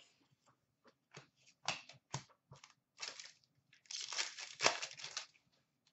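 Trading cards being handled: a scatter of short scrapes and rustles of card stock sliding against card, denser for a second or so near the end.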